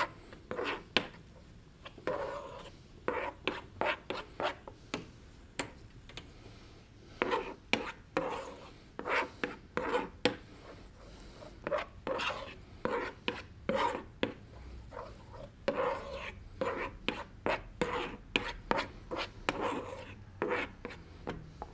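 A utensil scraping and stirring around a pot of chocolate, cream and butter melting over boiling water in a bain-marie. The strokes are short and uneven, one or two a second, with a short pause in the middle.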